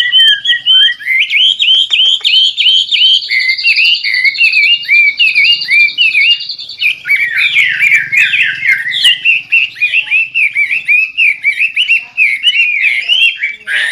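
White-rumped shama (murai batu) in vigorous full song, a tutor (masteran) recording: a fast, unbroken stream of varied chirps and sweeping whistled notes, with a thin high note held for about four seconds in the first half.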